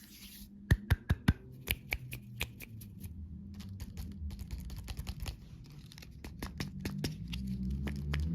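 Candy wrapper being handled and torn open: a run of sharp crackles and clicks over a crinkling hiss, with a cluster of loud snaps about a second in.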